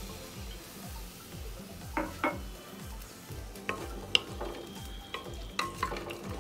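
Spoon stirring rice, vegetables and freshly added water in an aluminium pressure cooker, clinking and scraping against the pot several times in the second half.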